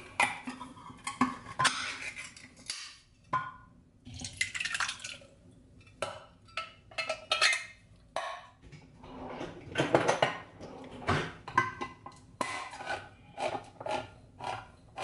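Metal cans and dishes clattering and knocking on a kitchen counter. Near the end comes a run of regular clicks, about three a second, as a hand-held can opener is cranked around a can.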